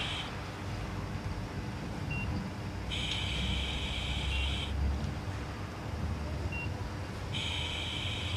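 Operating-room monitor beeps: a long high beep of about a second and a half that repeats every four to five seconds, with short faint blips about every two seconds in between, over a low steady hum.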